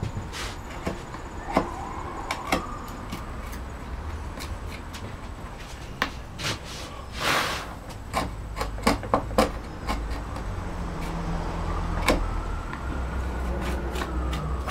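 Sharp knocks of a mallet striking a carving gouge as it chops out background wood, several in quick succession about two-thirds of the way through. Under them, road traffic passes with a low rumble that builds toward the end, a faint rising-and-falling tone, and a short hiss about halfway.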